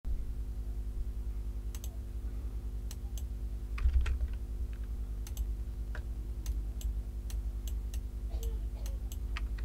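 Scattered clicks of a computer keyboard and mouse, a dozen or so at uneven intervals, with a louder knock about four seconds in. A steady low electrical hum runs underneath.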